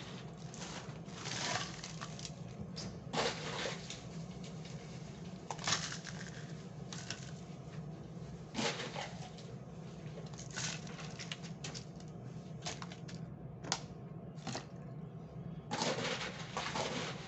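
Scattered clinks and clatters of hard objects being handled, at irregular moments, over a steady low hum.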